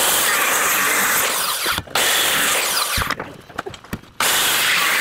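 Handheld circular saw cutting through the ends of wooden rafters, trimming the rafter tails to length. It runs through one long cut, stops for about a second around three seconds in, then cuts again, its whine falling as it spins down near the end.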